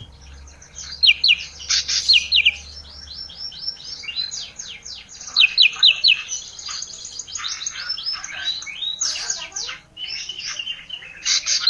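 A small songbird known to Indonesian bird-keepers as 'ranting', singing a fast, busy song of quick downward-sweeping whistles and chips. It comes in dense runs with brief breaks about three seconds in and again near the end. This is the kind of vigorous ('gacor') song that is played as 'isian' material to tutor other songbirds.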